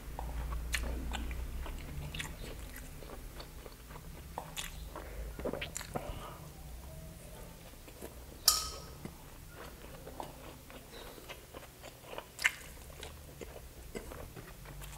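Close-miked chewing of grilled skewered street food (intestines and barbecue), with wet mouth clicks and smacks throughout. Two louder, sharper smacks stand out, one just past the middle and one near the end.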